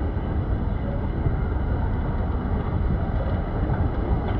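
Moving escalator running with a steady low rumble, mixed with the hum of a large indoor hall.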